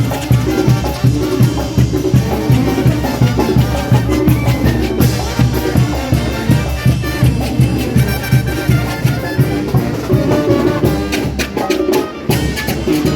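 Mexican brass band (banda) playing an up-tempo Latin dance tune live: brass carrying the melody over drums with a steady beat.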